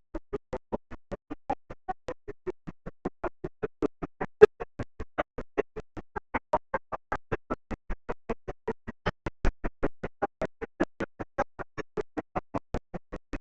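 Music, chopped into short, even pulses about four to five times a second: the camera's audio breaks up under loud sound.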